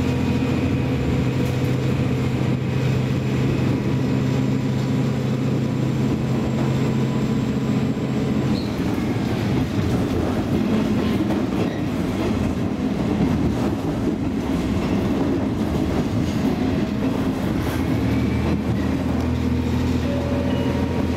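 JR West KiHa 47 diesel railcar running, its diesel engine a steady hum. About eight seconds in the engine note fades into a rougher running rumble, and the steady engine note returns a few seconds before the end.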